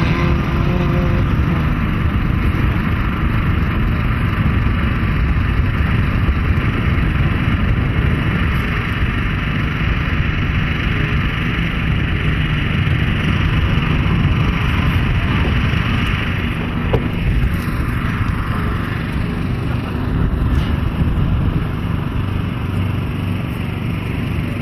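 Engines of off-road 4x4 vehicles racing across a dirt course, heard as a loud, steady mass of engine and road noise.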